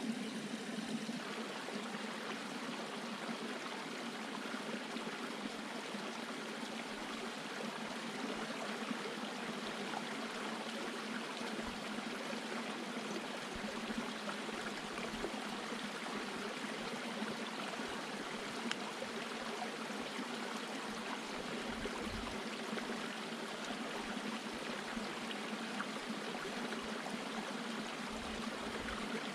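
A stream running steadily: an even, unbroken rush of water.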